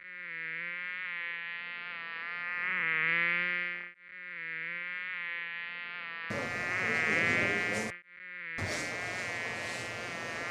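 A fly buzzing in flight, its pitch wavering and its loudness swelling and fading as it passes close. The buzz cuts off abruptly twice, about four and eight seconds in, and starts again at once.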